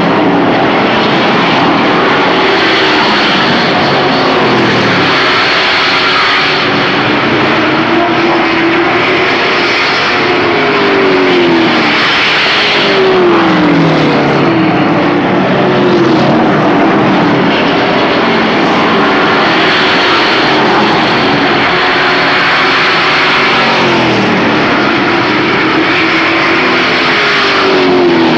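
Engines of pickup-bodied race trucks running hard around a short oval. The pitch drops each time a truck passes close by, several times over.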